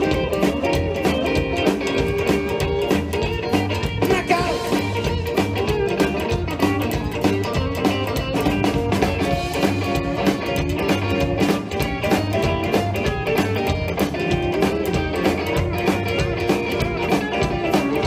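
Live rock and roll band playing an instrumental stretch: electric guitars over upright bass and drums, with a steady driving beat.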